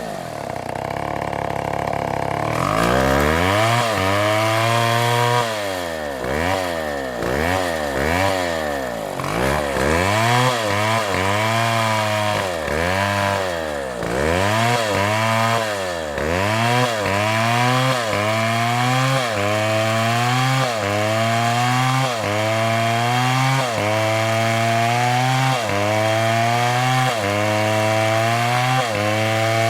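Two-stroke chainsaw engine, its pitch dropping and rising again about once a second as it is throttled and loaded through the cut.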